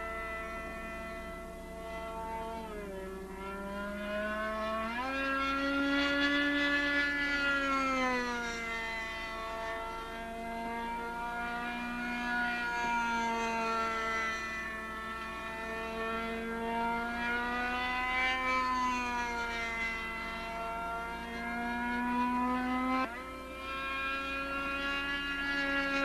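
The RC F-16 model's YS 45 glow engine and pusher propeller buzzing in flight, a single high drone whose pitch swoops down and up as the plane manoeuvres and passes. The pitch drops sharply about three seconds in, climbs back about two seconds later, and jumps up suddenly near the end.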